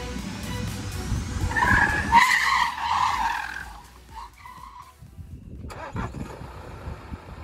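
Tyres of a Land Rover Defender squealing as the SUV swerves hard through an evasive lane change at about 78 km/h, at the limit of grip. The screech is loudest from about one and a half to nearly four seconds in, with a brief shorter squeal just after, then dies away.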